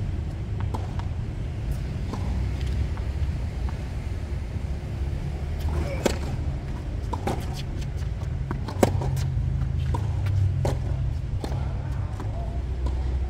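Tennis ball struck by rackets in a rally: a serve about six seconds in, then several more hits and bounces, the loudest about nine seconds in. A steady low rumble runs underneath.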